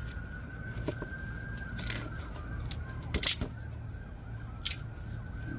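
A faint siren wailing slowly, its pitch sagging and rising again. A few sharp knocks cut through it, the loudest about three seconds in.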